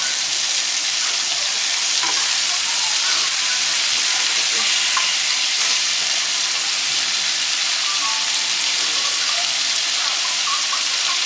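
Onions and smoked sausage sizzling steadily in a frying pan as they sauté.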